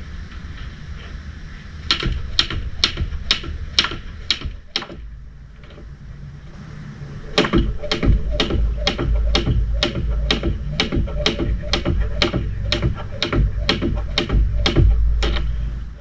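Jump rope slapping the ground in a steady rhythm, about two to three strokes a second, in two runs with a pause of about two seconds between them. A low rumble runs under the second run.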